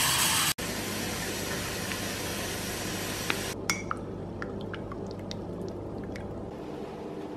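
Tap water running into a ceramic mug, stopping abruptly about half a second in. Then a metal spoon stirring in the mug, with a run of light clinks against its sides from about halfway through.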